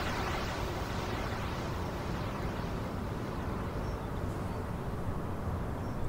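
Steady outdoor background noise: a low rumble under a soft hiss, the hiss fading a little towards the end.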